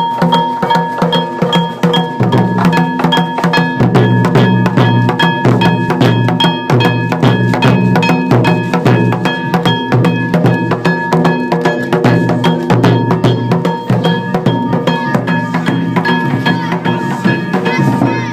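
Yamakasa festival float music: taiko drums and small hand-struck metal gongs (kane) played together in a fast, continuous rhythm, the gongs ringing high over a heavy drum beat.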